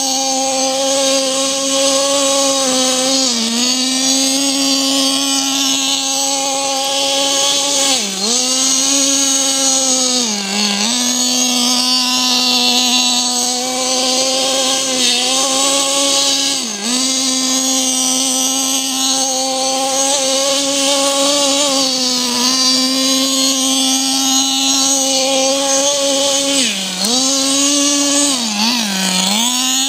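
HSP 1/8 Bazooka RC buggy's PT21-P3 .21 two-stroke nitro engine running hard at high revs, a steady high-pitched note. The pitch dips briefly several times as the throttle is eased off and opened again.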